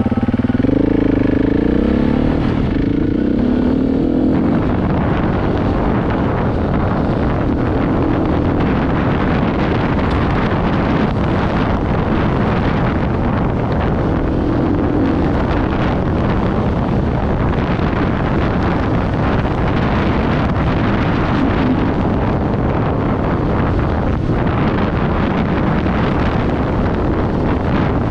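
KTM 690 Enduro's single-cylinder engine under way, its note rising over the first couple of seconds as it accelerates, then running steadily under a rush of wind noise.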